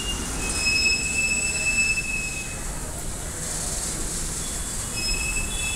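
Indian Railways goods train wagons rolling slowly past, their steel wheels squealing on the rails in high, steady tones for about two seconds starting half a second in and again near the end, over a continuous low rumble.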